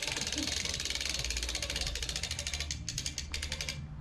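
A rapid, even run of mechanical clicks, like a ratchet being worked, over a steady low hum; the clicking stops shortly before the end.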